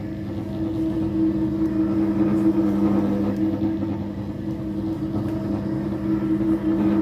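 Single-disc rotary floor polishing machine running with a steady motor hum while its pad grinds over a marble floor. The level swells and eases slightly as the machine is swept from side to side.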